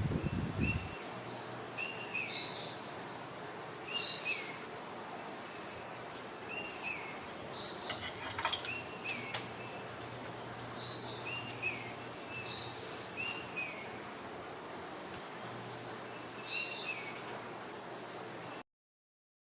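Birds chirping: short, similar calls repeating about once a second over a faint steady background hiss, cutting off suddenly near the end.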